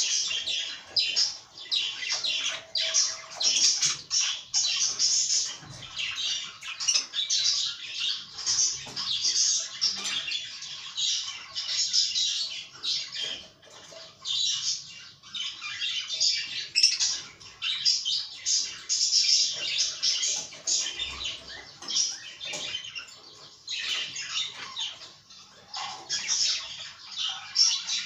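Several caged budgerigars chattering and warbling without pause, a dense run of quick, high, overlapping chirps.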